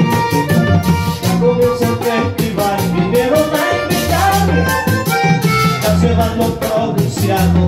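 Live vallenato music: a diatonic button accordion playing the melody over a bass guitar line, with a metal guacharaca scraping a fast, steady rhythm.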